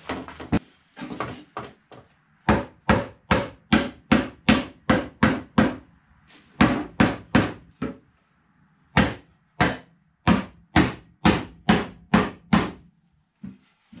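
Rubber mallet striking the finger joints of a wooden beehive deep super, driving the pre-cut boards together: runs of steady blows about two a second, with short pauses between runs.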